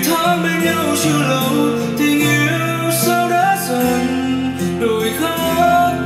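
A song with guitar and singing playing through a Braven XXL/2 portable Bluetooth speaker at a steady level.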